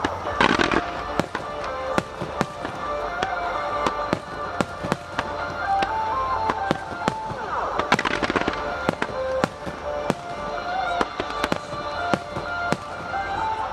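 A fireworks barrage: many aerial shells bursting in quick succession, with dense clusters of bangs about half a second in and again about eight seconds in. Music plays alongside.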